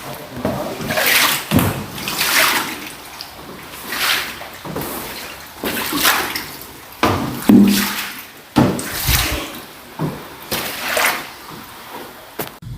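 Heavy rain pouring down in strong wind, its hiss swelling and fading in gusts every second or two.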